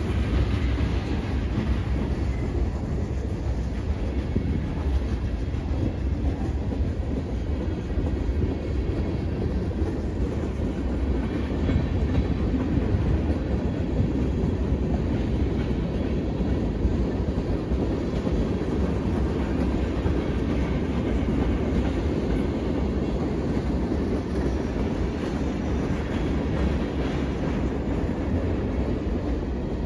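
A freight train rolling past, a string of boxcars and then tank cars, with a steady low rumble from the wheels on the rails.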